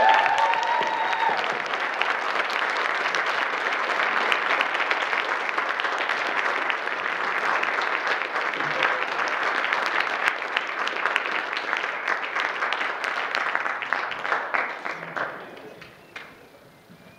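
Congregation applauding, with a voice calling out briefly at the start. The clapping stays steady, then dies away about fifteen seconds in.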